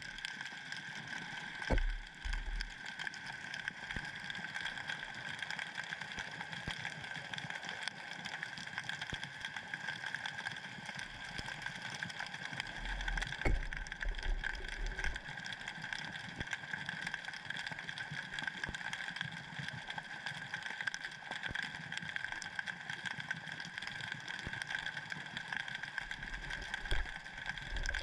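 Underwater ambience picked up by a submerged camera: a steady hum and hiss with fine crackling running through it, and a few low thumps, about two seconds in, midway and near the end.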